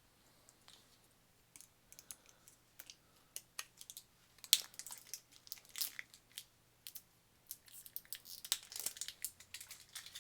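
Plastic and foil sweet packaging crinkling and crackling as it is handled and pushed to free the sweets, in a run of sharp clicks and crackles that get busier and louder in the second half.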